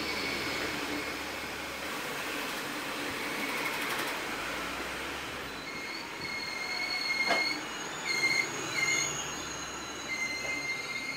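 SBB double-deck passenger train rolling slowly along the platform with a steady rumble of wheels on rail. About halfway through, a high-pitched squeal starts, breaking off and returning several times, with a single sharp clank in between.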